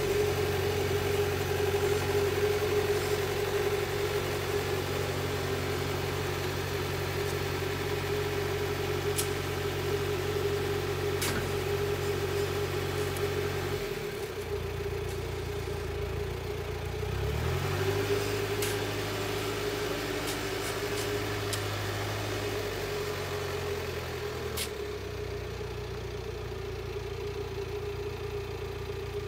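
Diesel engine of a work machine running, with a steady whine above its note. It slows about halfway through, then speeds back up a few seconds later and settles, changing again briefly near the end.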